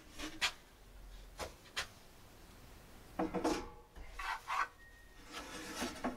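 Wooden shelf unit being handled and set down on a metal shelf frame: a few separate knocks, then bursts of knocking and scraping as the boards bump and slide into place, the last near the end.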